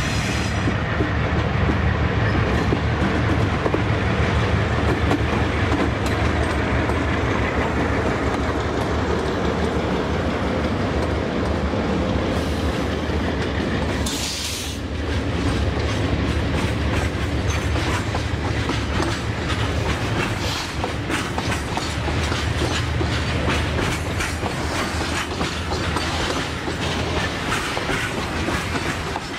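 A train rolling past on the rails: a steady low rumble of the wagons, with the wheels clicking over rail joints in a clickety-clack. There is a short hiss about halfway through.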